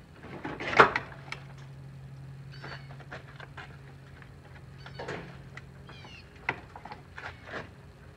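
Plastic front bumper cover of a Dodge Charger being tugged loose from the car, with scattered clicks and knocks and one loud snap about a second in. A steady low hum sits underneath.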